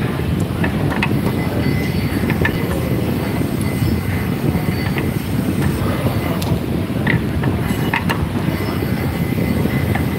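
Steady low rumble of running machinery with a few light clicks and brief squeaks scattered through it.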